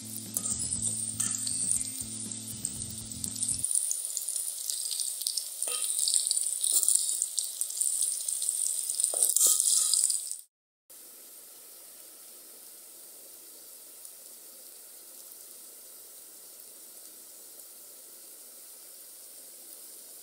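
Potato wedges sizzling in hot oil in a metal pan, with a few sharp clinks of a metal spoon against the pan. Background music plays over the first few seconds and stops; after a brief dropout about halfway, the sizzling goes on quieter and steady.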